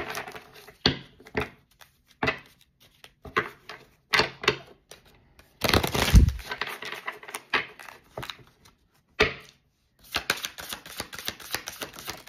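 Tarot cards being shuffled by hand: irregular bursts of cards slapping and flicking together, with a louder burst and thump about six seconds in and a fast run of clicks near the end.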